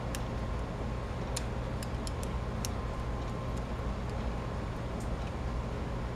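Steady low background hum with a few faint, light clicks of small metal parts being handled: the power-valve gears and control segment being reseated in the cylinder.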